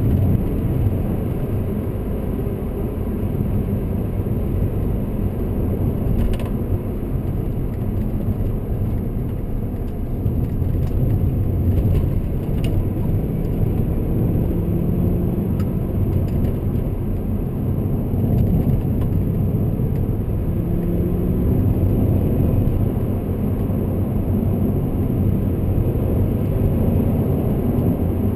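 BMW E39 M5's 4.9-litre V8 engine and road noise, heard from inside the cabin while driving at speed, a steady low rumble whose pitch rises and falls a few times with the throttle.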